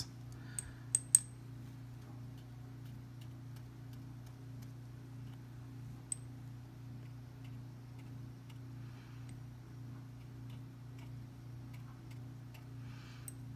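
Quiet room tone: a steady low hum with faint, even ticking about twice a second, and a few sharper clicks in the first second or so.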